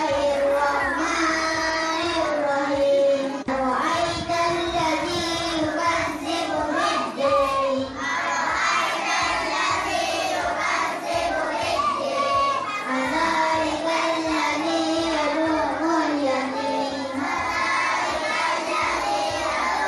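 A child's voice chanting a Quranic recitation into a microphone, in long held notes that bend and waver.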